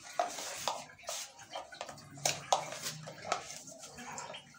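Irregular light clicks and scrapes of a spoon against a container as dry yeast is scooped out and measured.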